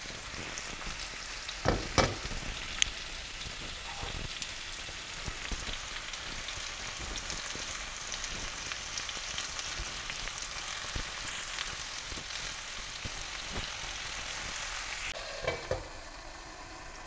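Marinated tandoori chicken pieces sizzling steadily as they fry in oil in an open non-stick pan. A few clattering knocks from handling the pan lid and tongs, the loudest about two seconds in; near the end the glass lid goes back on with a clunk and the sizzle turns muffled.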